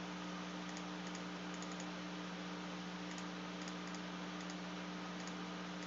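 Faint, irregular clicking of computer keys and mouse buttons as numbers are entered into a calculator, over a steady low hum.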